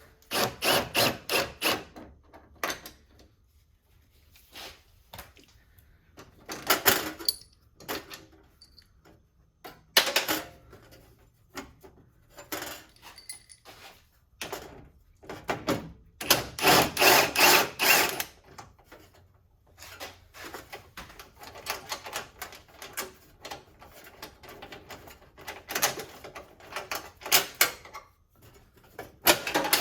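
Hand-tool work on a car's front end: bursts of rapid clicking and clattering lasting a second or two, several seconds apart.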